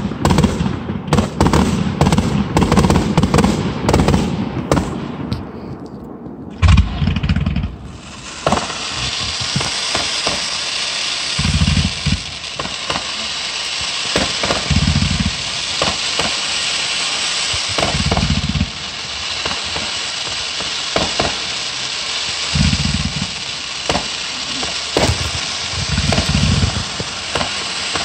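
Fireworks: dense crackling and popping for the first several seconds, then from about eight seconds a steady high hiss of a firework fountain spraying sparks. About seven dull low thumps come at intervals through the hiss.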